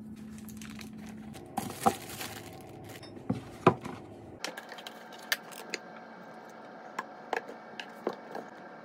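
Kitchen items being handled during food preparation: scattered clicks, knocks and light clinks, the sharpest about two and four seconds in.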